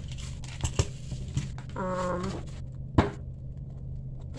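A clear vinyl binder and plastic cash envelopes being handled: several sharp clicks and taps, the loudest about three seconds in, over a steady low hum.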